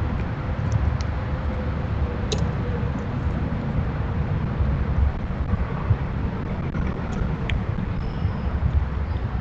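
Steady low outdoor rumble, with a few faint, brief high bird chirps and a short whistle near the end.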